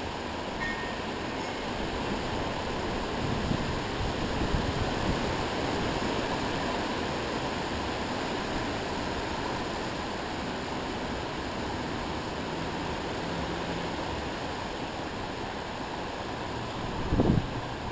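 Storm wind blowing hard and steadily, rising and falling a little in gusts. A short loud knock comes near the end.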